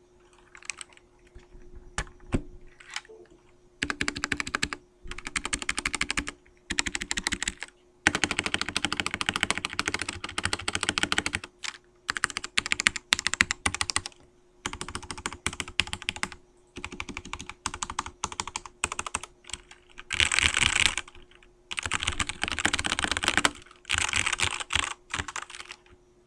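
Typing on a Royal Kludge RK987 mechanical keyboard: fast runs of key clicks in bursts of one to three seconds, broken by short pauses.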